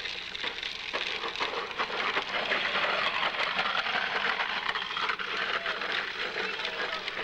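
Close rustling and crackling with many small irregular ticks, like fabric or handling noise right at the microphone.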